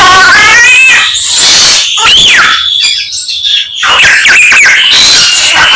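A samyong songbird singing a loud medley of calls mimicked from other birds: whistles sliding up and down, warbled runs and harsh scratchy notes, with a short lull about three seconds in.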